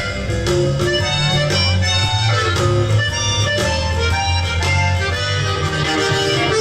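Background instrumental folk music with guitar, a reedy melody like harmonica or accordion, and a steady bass beat.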